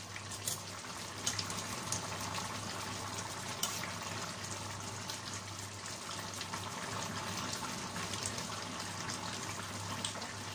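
Chicken and potato stew simmering uncovered in a stainless steel pan, a steady bubbling hiss as the liquid reduces. A few light clicks of a utensil against the pan.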